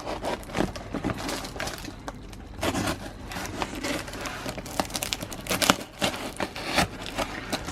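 A parcel-taped cardboard box being cut open: irregular scraping, crackling and tearing of tape and cardboard, with many sharp clicks.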